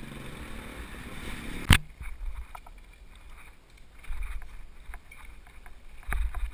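Riding a mountain bike with the microphone on the bike: a steady low motor hum at first, then a sharp click less than two seconds in where the sound cuts abruptly to wind buffeting the microphone and the bike rattling over a dirt road, with scattered light ticks.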